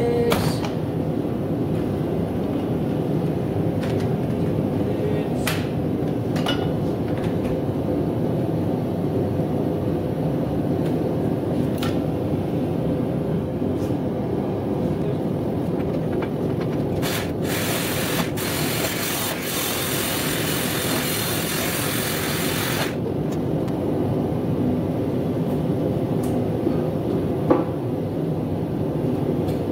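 A propane forge burner runs with a steady roar, with a few sharp metal clinks scattered through it. About two-thirds of the way in there is a hiss lasting several seconds.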